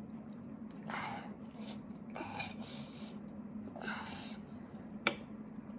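Toddler eating soup from a ceramic mug with a spoon: three short breathy sounds from his mouth and nose, then a single sharp clink of the metal spoon against the mug about five seconds in, over a steady low hum.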